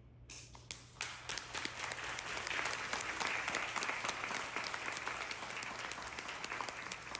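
Audience applauding: clapping breaks out a moment in and builds quickly to a steady round of applause.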